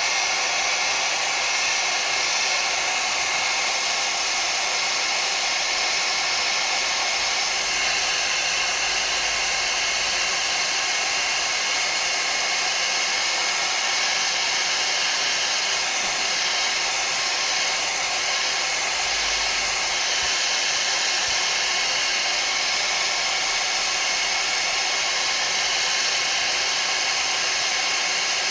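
Hair dryer blowing steadily on high, heating a smartphone to soften the adhesive under its battery.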